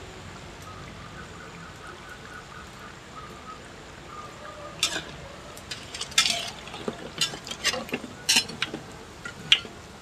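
Combro, grated-cassava fritters, deep-frying in hot oil in a metal wok with a steady sizzle. From about five seconds in, a perforated metal skimmer scrapes and clinks repeatedly against the wok as the fritters are turned and scooped out.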